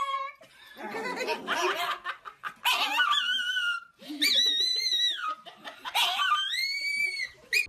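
A small Chihuahua-type dog howling in three long, high cries, each held and then sliding down in pitch at its end, with a person laughing at the start.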